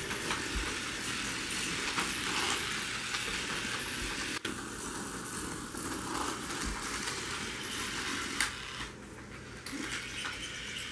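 Small battery-powered light-up toy race cars whirring and rattling along a flexible plastic race track, with light clatter as the track and cars are handled.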